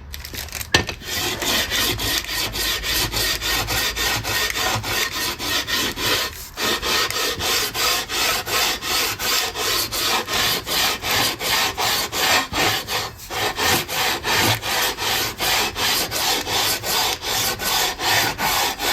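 Sandpaper on a leveling beam being pushed back and forth along a guitar's bare wooden fretboard, with even strokes at about two to three a second and two brief pauses. The fretboard is being sanded level to take out a small hump.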